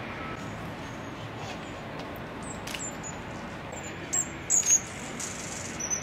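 Short, high-pitched chip calls of a green-backed firecrown hummingbird, scattered and then in a quick loud cluster about four and a half seconds in, over a steady background hiss.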